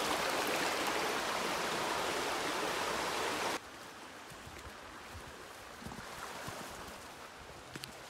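Steady rushing of a woodland stream, cut off suddenly about three and a half seconds in, giving way to quiet with faint rustles and soft footsteps of wellington boots on a leafy path through undergrowth.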